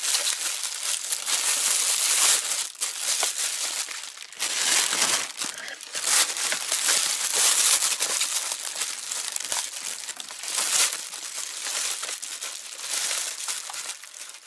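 Packaging of a new camera being unwrapped and handled: plastic wrapping crinkling and rustling in irregular spells, with brief pauses between handfuls.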